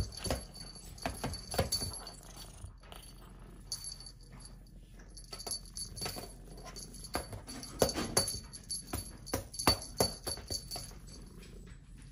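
A Persian kitten batting and pouncing at a feather wand toy: irregular light taps and thumps of paws and toy against the floor, a few louder ones in the second half.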